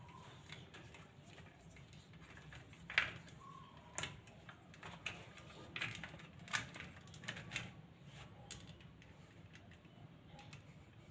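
Faint, irregular small clicks and taps of electrical wiring work: wire ends and a small hand tool knocking against a plastic junction box, the sharpest click about three seconds in.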